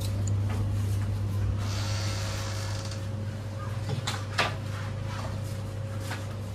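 Steady electrical hum of a shop's glass-door drinks cooler, with a rustle of packaging as drink pouches are handled, then two sharp knocks about four seconds in, the second the louder, as the cooler door and shelf are knocked against.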